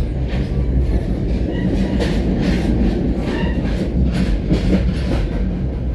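An NJ Transit Comet IV commuter coach running along the track, heard from inside the car: a steady low rumble with irregular clicks of the wheels over rail joints.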